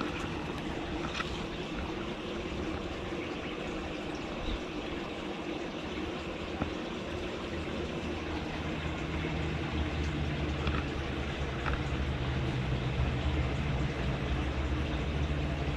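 Steady background hiss, with a low machine-like hum that comes in and grows about halfway through.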